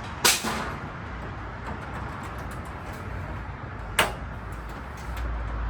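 Two sharp knocks, about three and a half seconds apart, the first with a short ring after it, typical of metal tools or parts being handled; a low rumble comes in near the end.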